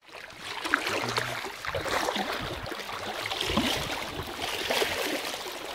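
Water splashing and sloshing close by as a nine-week-old German wirehaired pointer puppy paddles, with many small irregular splashes.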